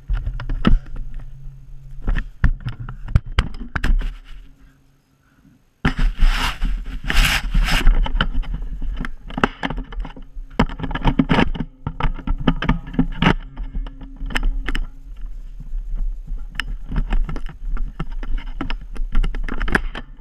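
Irregular knocks, thuds and scrapes from footsteps and from handling a camera carried with a Nerf blaster, over a low rumble. The sound drops out for about a second and a half about four seconds in, then comes back louder.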